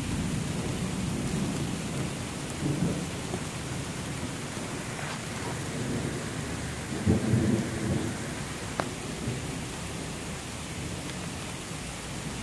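Steady rain with thunder rumbling low underneath, swelling loudest about seven seconds in. A single sharp tick sounds near the end.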